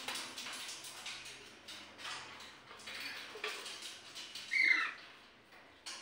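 Green parakeet crunching soaked maize kernels in its beak, a run of crisp crunches and clicks against the food dish. One short squawk about four and a half seconds in is the loudest sound.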